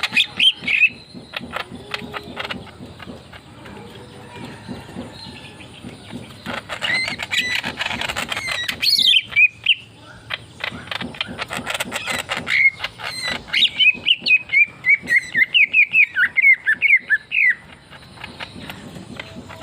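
Leafbird (murai daun) singing a lively, chattering song of whistled and clicking notes. Past the middle comes a fast string of repeated notes lasting about five seconds.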